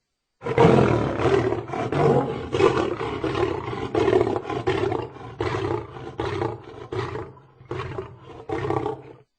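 A lion roaring in a long series of short, deep pulses that grow fainter and more widely spaced toward the end.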